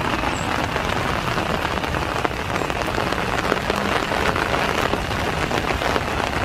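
Steady rain falling, with many close raindrops ticking sharply.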